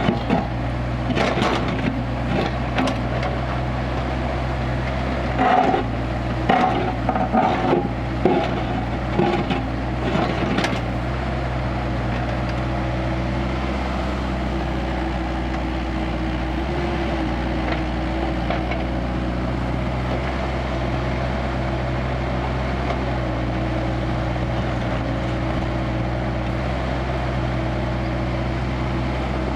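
Kubota KX161-3 mini excavator's diesel engine running steadily, with a string of knocks and clunks from the machine at work over the first ten seconds or so, then only the steady engine.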